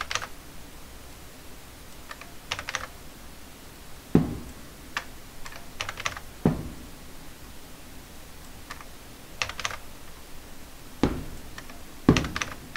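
Computer keyboard keys being pressed one at a time in scattered short clicks, a few of them heavier strikes.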